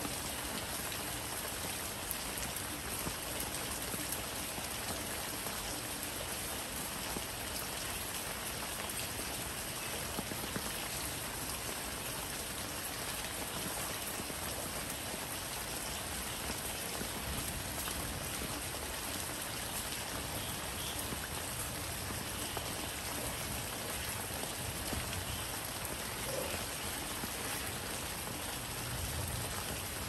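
Steady rain falling on leafy plants.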